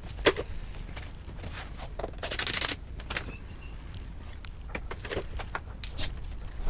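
Hand tools working on rusty bumper bolts: scattered metallic clicks and knocks, with a short rapid rattle of ticks about two seconds in.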